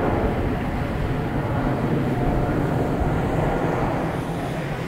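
Boeing 777-200 twin-engine jet airliner climbing away after takeoff: the steady rumble of its jet engines, easing off slowly near the end as it moves away.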